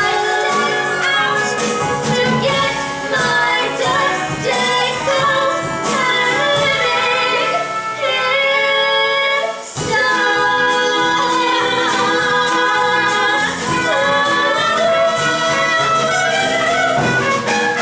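Voices singing a show tune with instrumental accompaniment, holding long notes; the music dips briefly about ten seconds in, then carries on.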